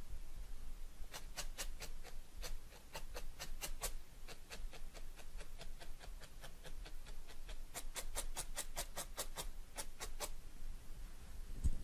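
Felting needle stabbing repeatedly through wool roving into a dense foam mat: runs of quick, light ticks, several a second, with short pauses between runs.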